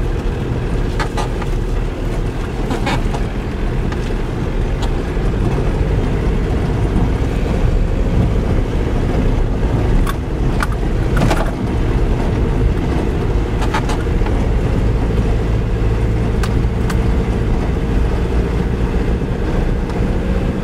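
Steady low rumble of a car's engine and tyres heard from inside the cabin while driving on a rough dirt road, with a few sharp knocks and rattles scattered through it.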